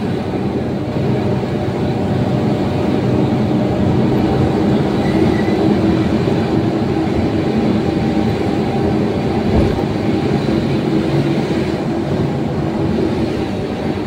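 Truck engine and road noise heard inside the cab while driving, a loud steady drone with a low engine hum. One brief thump about nine and a half seconds in.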